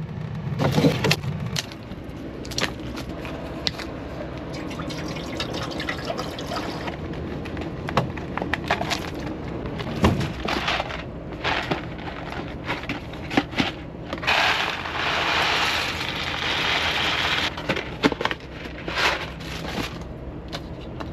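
Rummaging through food and kitchen things in a truck cab: scattered knocks, clicks and rustling over a steady low hum. About two-thirds of the way in there are a few seconds of hissing.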